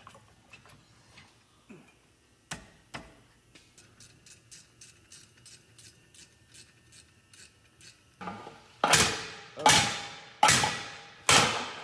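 Ratchet wrench clicking, about four clicks a second, then about eight seconds in, four hard hammer blows on metal, each ringing out briefly.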